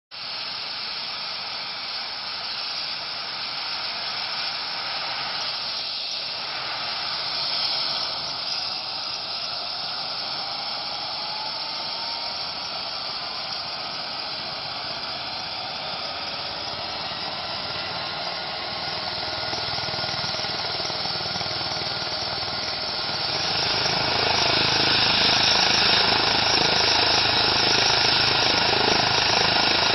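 Eurocopter EC135 twin-turbine helicopter running, a steady turbine hiss with a faint whine that slowly rises in pitch through the middle. About three-quarters of the way in it grows louder and fuller, with more low rumble.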